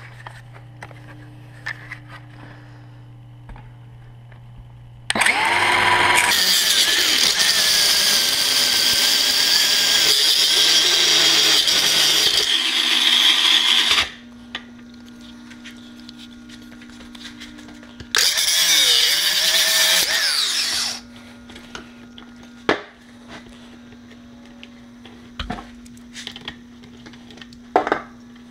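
A power tool's cutoff wheel spinning up and grinding through a rusted, seized steel wheel bolt: a long high grinding cut starting about five seconds in and lasting around nine seconds, then a second, shorter cut of about three seconds that winds down in pitch at its end.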